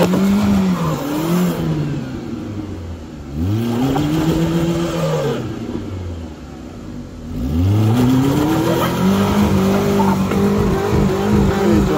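A car engine revved hard on an off-road climb: it rises and falls twice in long surges, then rises a third time and is held at high revs, wavering, near the end.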